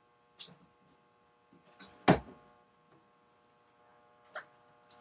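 A few sharp clicks and knocks from objects being handled and set down, the loudest a thump about two seconds in, over a faint steady hum.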